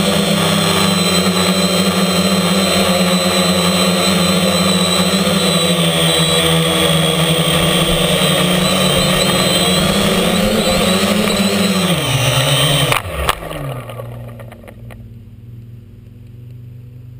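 Storm Drone 4 quadcopter's motors and propellers buzzing steadily, heard from the GoPro mounted on the drone. About twelve seconds in the pitch drops as it comes down, it touches down with a knock, and the motors wind down and stop.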